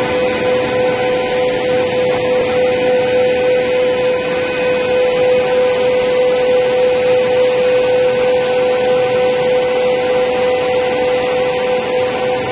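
Four-sided planer moulder running steadily: a loud, continuous machine hum with one strong steady whine over an even noise, with no change in pitch or level.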